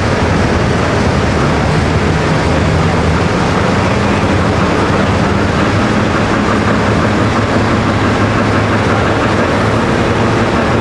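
Turbocharged diesel engine of a John Deere Pro Stock pulling tractor idling loudly and steadily at the starting line.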